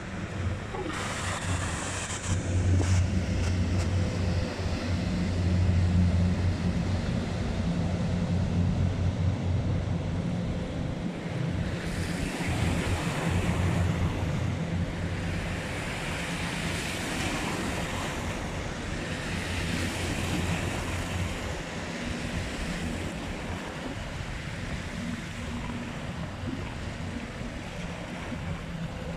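Low, steady engine drone of passing ships over water washing and lapping, with wind buffeting the microphone. The drone is strongest for roughly the first ten seconds. After that the splashing wash of water comes to the fore.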